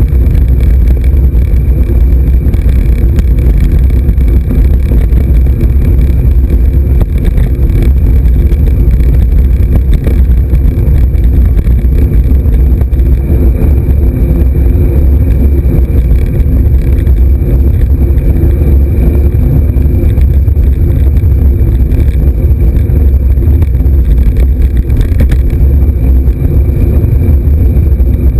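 Wind rumbling steadily on the microphone of an action camera mounted on a moving road bike, a loud, unbroken low rumble.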